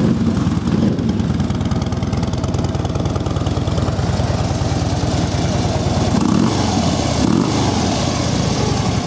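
Harley-Davidson Road Glide Custom's 103 cubic-inch V-twin engine idling steadily through its factory exhaust.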